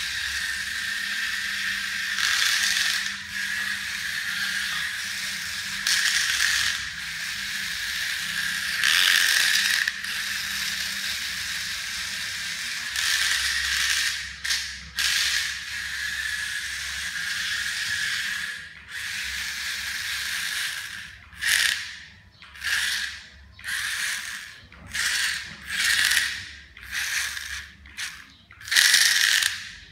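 Small electric gear motors of a homemade RC car whirring with a gear grind as it drives. They run steadily for most of the time, rising and falling with the throttle, then in the last third come in short on-off spurts at about one a second.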